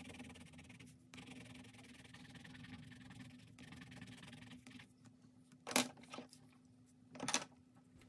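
Colored pencil rubbing and scratching on paper as it is pressed hard to blend light blue over purple, a soft steady scratching over a low hum for the first few seconds. Two short, louder noises follow near the end.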